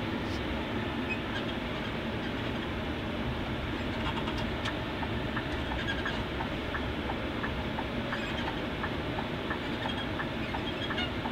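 Inside the cabin of a moving coach bus: steady engine and road noise, with light clicks and rattles that turn into a faint ticking, about two a second, from about four seconds in.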